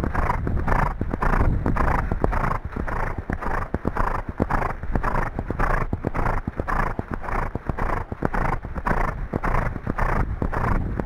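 A horse running on a sandy track: its hoofbeats and breathing come in a steady, even rhythm.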